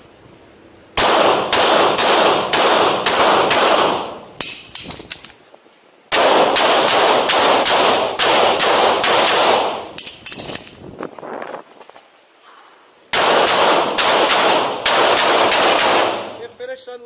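Handgun fired in three rapid strings of shots with short pauses between them, the shots ringing out in the enclosed indoor range.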